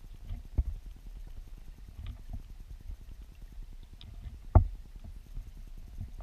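Low, muffled rumble of river current heard underwater through a submerged camera, with a sharp knock about four and a half seconds in and a smaller one just after the start.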